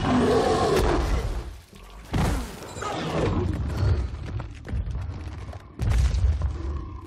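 Film fight sound effects for a giant troll: heavy booms and crashing impacts, loudest at the start, about 2 seconds in and about 6 seconds in, with film music underneath.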